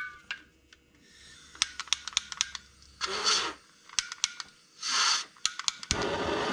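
Small clicks and ticks from tire-repair tools and the plug being handled, with two short hisses. Near the end a loud steady noise cuts in sharply.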